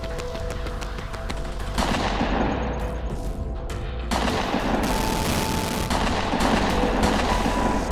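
Rapid, dense gunfire sound effects, a fusillade of shots that grows heavier about two seconds in and again about four seconds in, over a film score.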